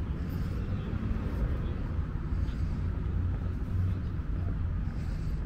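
Outdoor street ambience: a steady low rumble with a faint hiss above it.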